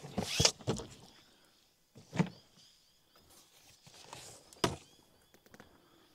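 Hard-shell suitcases being handled in and lifted out of a hatchback's boot. There is a quick run of knocks and thumps in the first second, a single louder knock about two seconds in, a scrape and another knock about four and a half seconds in, and a few light clicks near the end.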